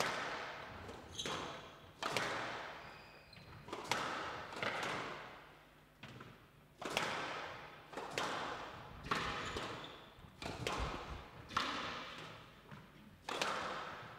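Squash rally: the ball is struck by rackets and hits the court walls, giving sharp echoing thwacks about once a second.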